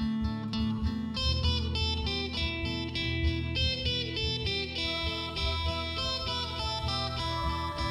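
Background music led by guitar, with plucked and strummed notes over a steady beat.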